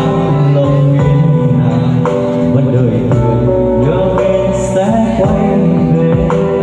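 A man singing a song into a handheld microphone over backing music, amplified through a PA sound system.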